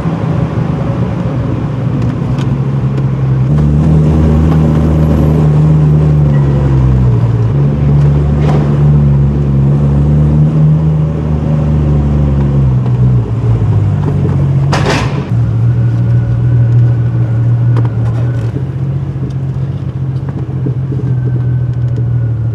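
Car engine pulling the car up parking-garage ramps, its note rising and falling a few times with the throttle before settling to a steadier run from about fifteen seconds on. A short sharp noise about fifteen seconds in.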